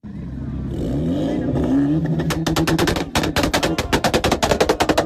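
A car engine revs, rising in pitch over the first two seconds, then the exhaust lets off a rapid string of loud pops and bangs, about eight a second, from about two seconds in.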